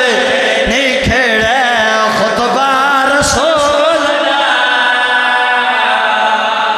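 Men singing unaccompanied devotional verse into microphones, a high, ornamented, wavering melody that settles onto a long held note about four seconds in.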